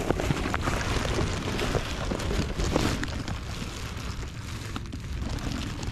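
Wind buffeting the microphone as a steady, uneven rumble, with rustling and a few handling knocks.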